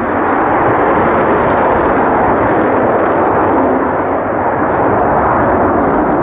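Aircraft flying its airshow display, its engine a steady loud noise that dips slightly about four seconds in.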